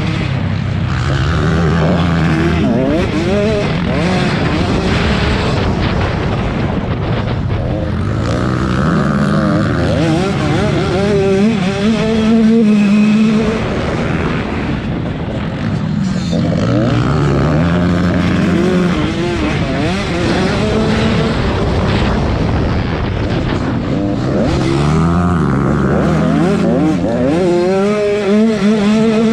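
Several racing motorcycles running together on a velocross dirt track, engines revving up and down through the gears. The sound swells and fades in a cycle about every eight seconds as the pack laps and passes.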